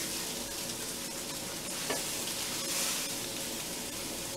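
Ground pork sausage sizzling as it browns in a frying pan, while a utensil stirs and breaks it into fine pieces, with one sharp scrape about two seconds in.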